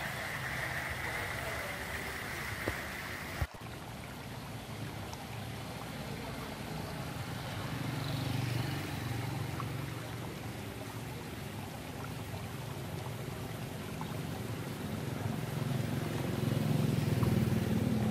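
Steady outdoor background noise of street traffic, with a low rumble that grows louder near the end. A sharp click about three and a half seconds in, where the sound cuts.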